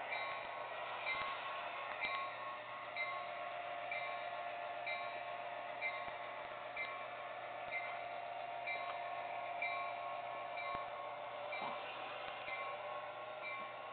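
Model locomotive bell from the HO train's sound ringing steadily, about one ding a second, over a steady whine from the running train and a few light clicks on the track.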